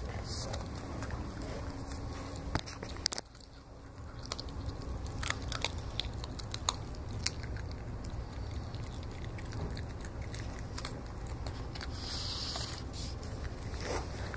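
Donovan Pinscher puppy chewing raw meat, with irregular sharp crunching clicks, over a steady low hum.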